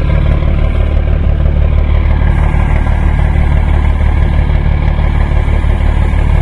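Scania truck's diesel engine idling steadily, with a faint high hiss that stops about two seconds in.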